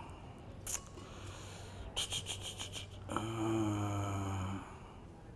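A man's low, drawn-out hum with no words, about a second and a half long. Before it come a faint click and a brief fast fluttering rattle.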